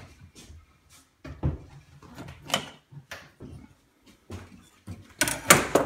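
Scattered knocks and rattles of tools and objects being shifted on a workbench, with one louder clatter near the end.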